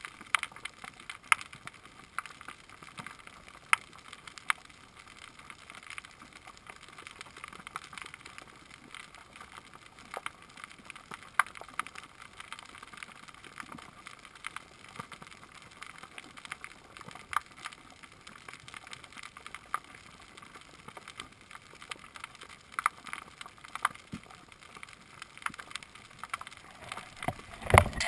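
Underwater coral-reef ambience: a steady crackle of many irregular clicks and snaps over a hiss. Just before the end comes a loud burst of knocking and rubbing on the camera housing as something covers the lens.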